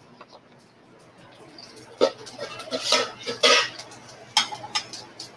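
Metal tongs clinking and scraping against a skillet as sliced shiitake mushrooms are moved in the hot pan: a cluster of irregular clinks and scrapes from about two seconds in, and a few more near the end.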